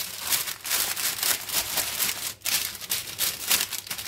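Parchment paper crinkling and rustling in irregular crackles as hands press and smooth it down over a ball of dough, flattening it into a square.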